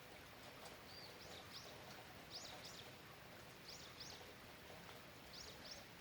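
Faint steady rain with a small bird calling over it: a quick pair of high chirps, repeated four times about a second or more apart.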